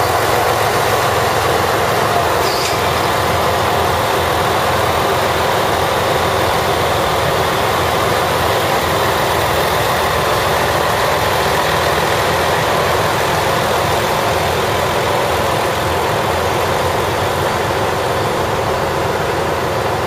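Chizu Express HOT7000 diesel limited-express train moving slowly past at close range: a steady, loud drone from its diesel engines and running gear.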